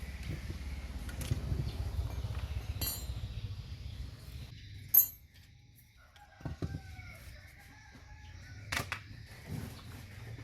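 Small metal parts and tools clinking and knocking during alternator bearing work, over a low rumble for the first half. A sharp metallic click about halfway, then quieter scattered knocks with a few short gliding calls in the background.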